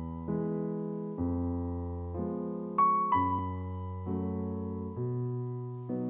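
Slow piano music, a new chord or melody note struck about once a second, each one fading as it rings.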